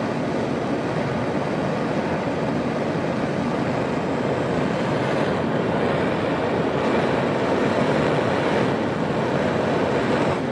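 Propane torch flame burning steadily with an even rushing hiss, heating a car radiator up to soldering temperature.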